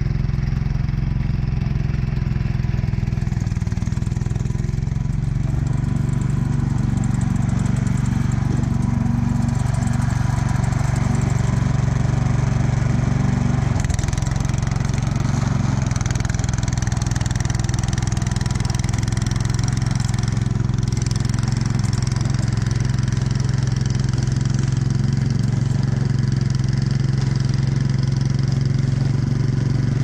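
Snowblower's gas engine running steadily, a constant low hum, with a broader hiss above it that swells for a while in the middle.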